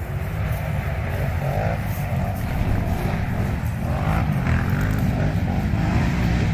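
Quad bike (ATV) engines running, their pitch rising and falling as they rev.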